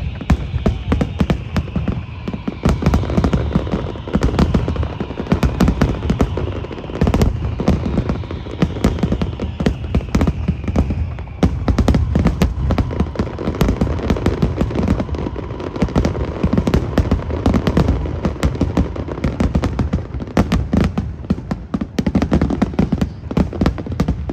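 A fireworks display in full barrage: rapid, overlapping booms and crackling bursts going off continuously, with no let-up.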